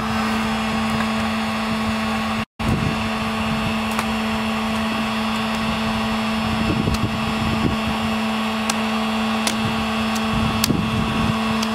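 Electric heat gun's fan motor running steadily with a constant hum, over a few faint clicks of the broken antenna mast and cable being handled. The sound cuts out for a split second about two and a half seconds in.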